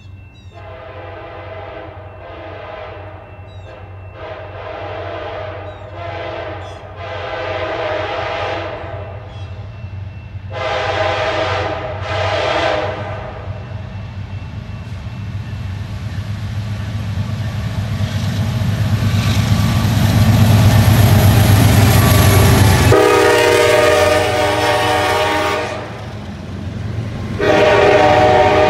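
CN diesel freight train sounding its horn in a string of blasts as it approaches, one of them long. The lead locomotives then pass close with a growing engine rumble and a high whine that break off sharply. The horn sounds again, lower in pitch, as the double-stack container cars roll by.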